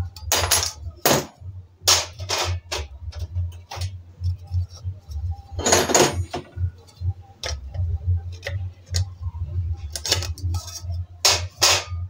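Enamelled steel pan-support rings and wire pot stands of a two-burner gas stove clinking and clanking as they are handled with pliers and set down, in about ten separate knocks with a longer clatter about six seconds in. A steady low hum runs underneath.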